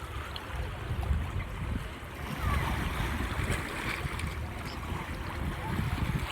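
Sea waves washing onto the shore, with wind buffeting the microphone in a low, uneven rumble.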